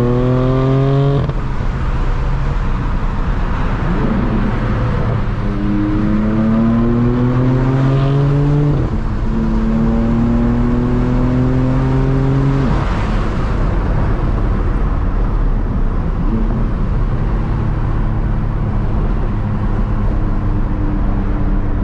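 BMW M4's twin-turbo straight-six through an AWE Track Edition exhaust, heard from inside the cabin in Sport Plus mode, accelerating hard through the gears. The engine note rises and cuts off at a shift about a second in, climbs again in two long pulls with a quick upshift between them around nine seconds in, then settles to a steady cruise.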